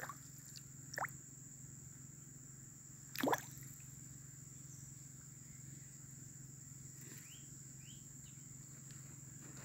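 Small plops on the water surface of a fish pond: a sharp one at the start, a lighter one about a second in and another about three seconds in. Under them a steady high-pitched insect whine and a steady low hum run on.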